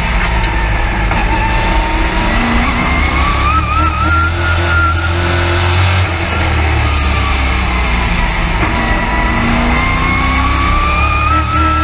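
Race truck engine heard from inside the cab at racing speed. The revs fall and rise twice, easing off into the turns and climbing again down the straights.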